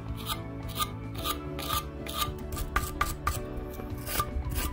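Hand wire brush scrubbing back and forth over a motorcycle cylinder head, about two strokes a second, scouring off leftover rocker cover gasket material.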